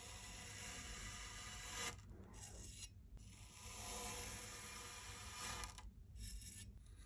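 Round metal tube cutter pushed down through domes of kinetic sand, a fine grainy crackling crunch as the sand packs and splits; two pushes, the second starting about halfway through.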